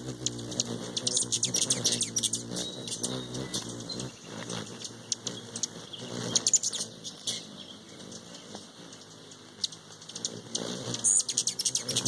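Hummingbirds' wings humming as they hover, a low buzz that swells and fades as birds come and go, with quick high chip calls and ticks in scattered flurries.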